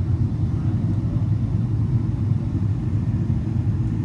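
Steady low rumble of an airliner in flight, its engines and airflow heard inside the passenger cabin.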